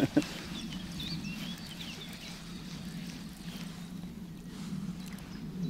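Birds chirping over a steady low hum, with faint scattered splashes of roach leaping at the lake surface.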